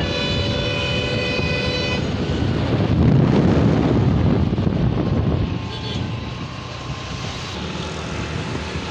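Highway traffic and road noise heard from a moving vehicle. A steady multi-tone vehicle horn sounds for about the first two seconds. A louder low rumble swells in the middle as traffic passes close, then eases off.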